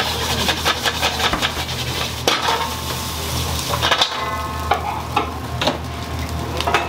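Restaurant kitchen cooking: food sizzling in a pan, with frequent sharp clatter of utensils against cookware over a steady low hum. A short ringing note sounds about four seconds in.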